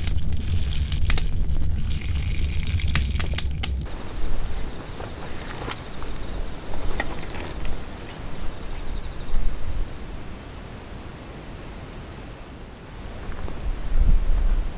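For about four seconds, a low wind rumble with scattered crackling clicks. Then it switches abruptly to a steady, high-pitched insect drone, one unbroken tone, over a quiet outdoor hiss with a few soft ticks.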